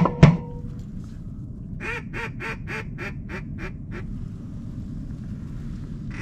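Two sharp, loud knocks at the very start. About two seconds in comes a quick, even run of about eight duck quacks, roughly four a second, in the cadence of a mallard hen's quacking.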